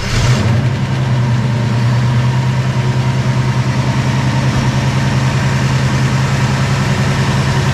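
1968 Mustang's 289 small-block Ford V8, just fired up, flares briefly and then idles steadily with an even, rapid pulse.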